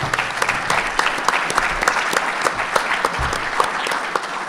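Audience applauding, dense clapping from many hands that swells up after a speaker's closing thanks and begins to fade near the end.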